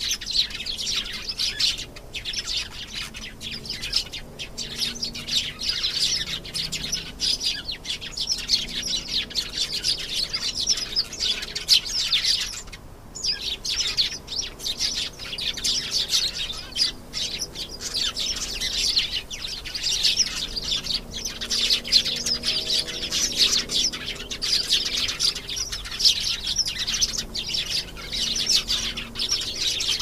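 Domestic canary singing a long, continuous song of rapid trills and chirps, high-pitched, with one brief pause a little before halfway.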